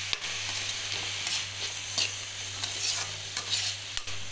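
Chopped tomatoes and onions frying in hot oil in a pan with a steady sizzle, and a spoon scraping and clicking against the pan every second or so as they are stirred while they soften.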